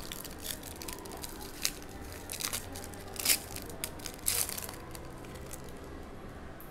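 A trading card pack wrapper being torn open and crinkled: a run of short crackling rustles, loudest about three and four seconds in.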